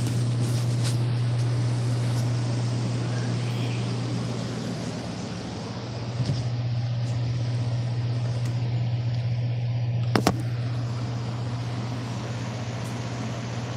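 A steady low hum with a rushing noise over it, like a running motor or appliance, with two short knocks about six and ten seconds in.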